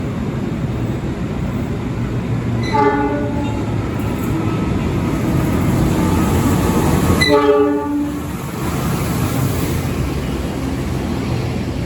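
A train running through a station with a steady rumble, sounding its horn twice: a short blast about three seconds in and another about seven seconds in.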